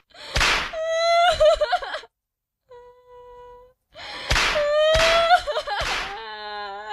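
A girl crying in high, wavering wails and whimpers while a belt lashes her several times, each sharp smack followed by a cry; there is a short quiet whimpering gap in the middle, and a trembling sob near the end.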